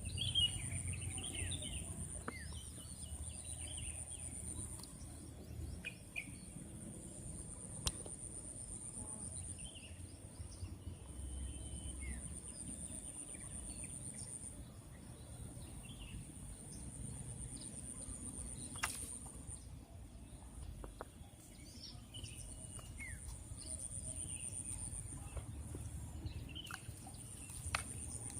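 Outdoor ambience of insects and birds. A high, thin insect buzz starts and stops every few seconds, with scattered short bird chirps, a low rumble underneath and a few sharp clicks.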